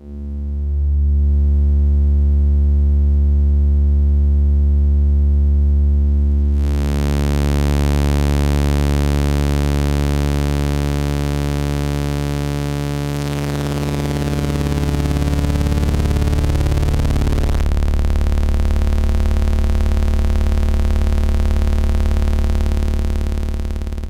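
Make Noise Strega's oscillator droning on one low note, its triangle wave run through the wavefolder. About six seconds in it turns suddenly brighter and buzzier as many more harmonics come in; a little past the middle the overtones shift and swirl for a few seconds as the folding is swept, then it holds steady.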